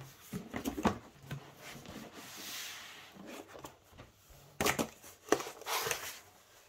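Rubbing and soft knocks as a rolled leather shoulder is handled on a table. A little over halfway through, louder knocks and scrapes as a split cardboard tube is picked up and moved.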